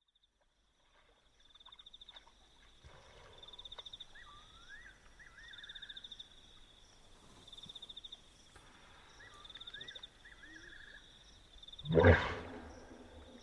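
A wild hippopotamus calls about twelve seconds in: a sudden loud, deep burst that opens its grunting call. Before it, an insect trills in regular pulsed bursts about every two seconds, and a bird gives a short whistled call twice.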